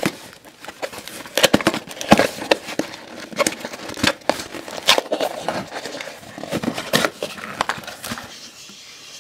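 Hands handling and opening a small cardboard box: irregular taps, scrapes and rustles of cardboard, with a few sharper knocks.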